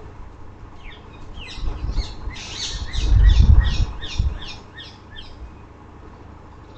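A bird chirping a quick series of short, high, falling notes, with a low rumble swelling about three seconds in.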